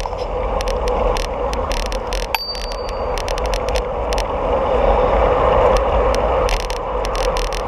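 Bicycle riding along a paved bike lane: steady wind and road noise on the handlebar-mounted action camera's microphone, with repeated clicks and rattles as the bike and mount go over the surface. A short, high ring sounds about two and a half seconds in.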